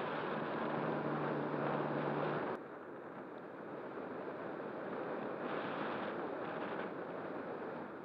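Model ASW 28 glider's nose motor and propeller running under power with the rush of air past the airframe; about two and a half seconds in the motor cuts and the sound drops sharply. What remains is the rush of air as it glides, swelling and fading.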